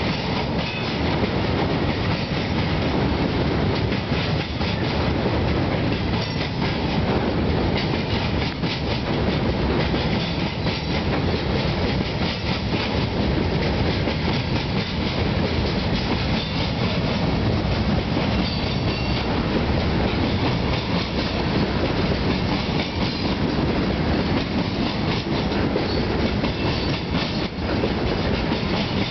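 Freight train cars rolling past: a steady rumble of steel wheels on rail with a continuous run of clicking.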